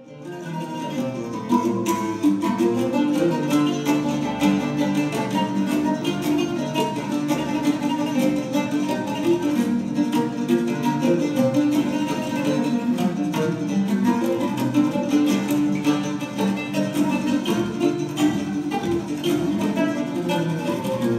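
Oud being played, a continuous stream of plucked notes that fades in at the start.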